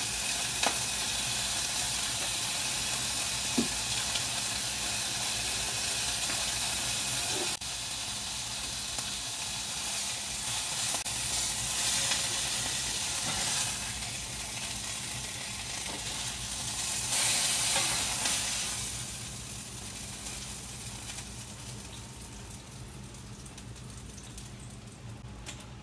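Chicken leg quarters sizzling in hot oil in a skillet as they sear, with a few sharp clicks of metal tongs against the pan. The sizzle fades over the last several seconds.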